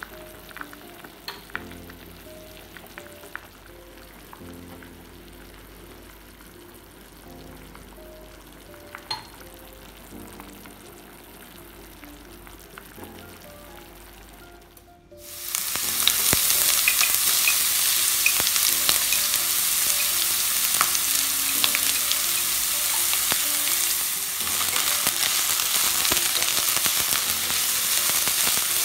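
Soft background music for about the first half. Then, after a sudden cut, loud steady sizzling of sliced onions frying in a steel pan as they are stirred with a spatula.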